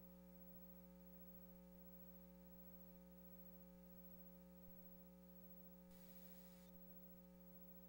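Near silence with a faint steady electrical hum, and a brief faint hiss about six seconds in.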